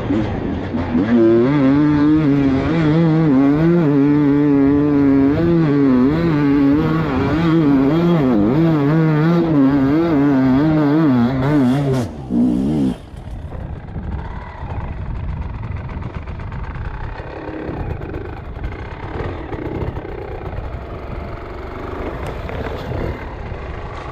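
Dirt bike engine running under constantly changing throttle, its note wavering up and down as the rider works along a steep trail. About halfway through the engine note drops abruptly after a short blip, and a quieter, rougher low running sound follows.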